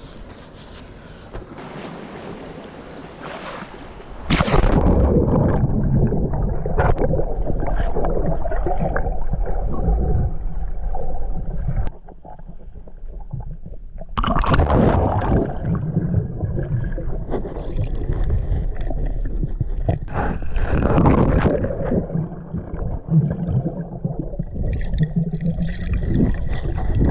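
Muffled rumbling and gurgling of seawater around a swimmer's camera as it goes into the sea, jumping much louder about four seconds in, dropping back briefly around twelve seconds, then returning.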